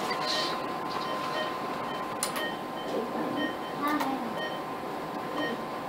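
Steady hospital-room background noise with a thin steady tone and short high electronic beeps repeating every second or so, with a few faint clicks.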